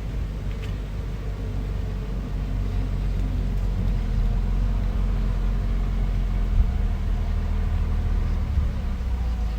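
Bulldozer's diesel engine running with a steady low rumble, with a short knock about two-thirds of the way through.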